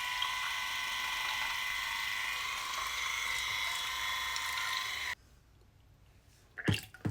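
Bitvae C1 water flosser running, a steady motor-and-pump whine, then switched off abruptly about five seconds in. A short, loud sound follows near the end.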